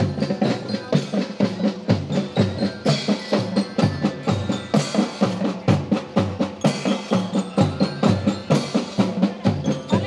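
School marching drum band playing a fast, steady beat on marching snare and bass drums, stroke after stroke in an even rhythm.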